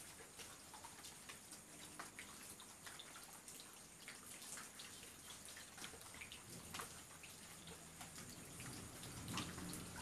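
Rain falling, heard as a quiet hiss with many separate drops ticking irregularly. A low steady sound comes up in the second half.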